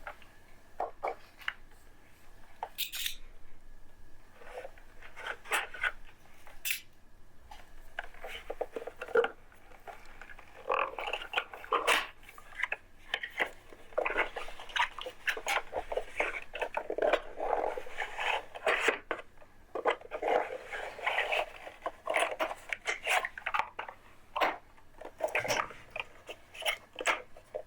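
Cardboard and plastic packaging of a boxed Intel CPU being opened and handled: irregular crinkling and rustling with scattered clicks and taps, busiest in the second half.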